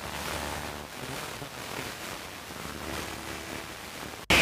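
Smartphone FM radio tuned to a weak station: steady static hiss with a faint broadcast barely coming through underneath. Near the end it switches abruptly to a much louder, clear signal.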